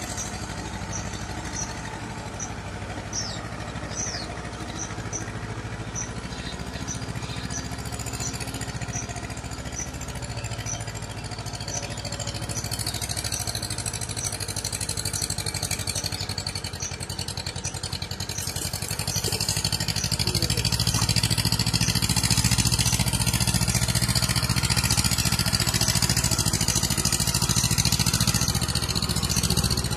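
Tractor engine running steadily while it puddles a flooded rice paddy, heard from some distance. It grows louder about two-thirds of the way in.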